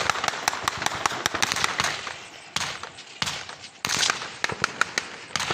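Sustained small-arms gunfire: a dense, uneven crackle of many overlapping shots, easing briefly about three seconds in and then picking up again.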